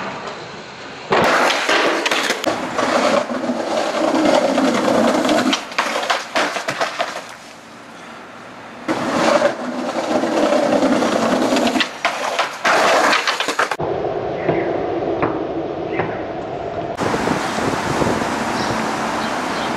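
Skateboard wheels rolling on concrete, broken by sharp clacks and slaps of the board hitting the ground, over several cut-together attempts at a trick.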